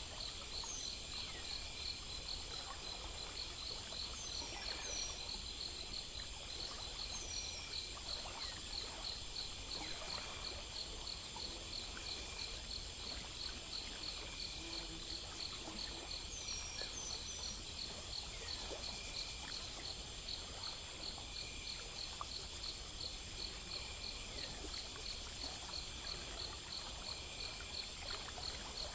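A steady night chorus of crickets and other insects, layered high songs, one of them a rapid pulsing chirp. A few short falling chirps and a low rumble sit underneath.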